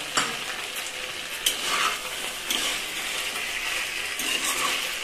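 Pan-fried momos in sauce sizzling in a non-stick kadai while a spatula stirs and scrapes them: a steady sizzle broken by several short scrapes of the spatula against the pan.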